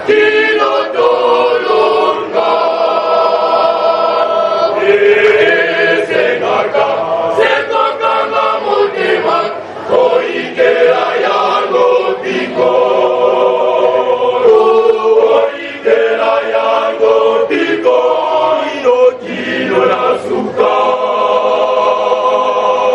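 Male choir singing, long held notes in phrases broken by short pauses.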